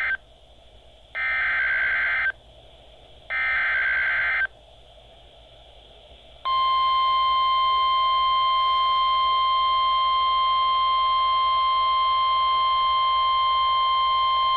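NOAA Weather Radio Emergency Alert System SAME header received on a weather radio. The end of one buzzy digital data burst is followed by two more, each about a second long and a second apart. After a two-second pause comes the steady single-pitch 1050 Hz warning alarm tone, which signals that a warning follows.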